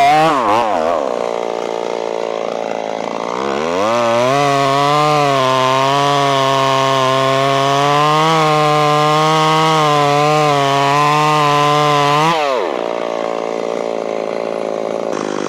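Ported Stihl 026 two-stroke chainsaw with a 28-inch bar cutting into an oak log. The engine speed wavers for the first few seconds, then climbs and holds a steady high full-throttle pitch for about eight seconds. Near the end it drops back to a lower, steady idle.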